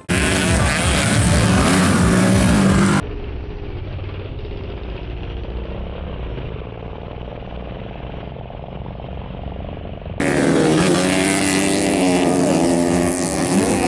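Dirt bike engines running and revving as motocross bikes race on a dirt track, rising and falling in pitch. About three seconds in the sound cuts abruptly to a quieter, duller stretch, and near ten seconds it cuts back to loud revving.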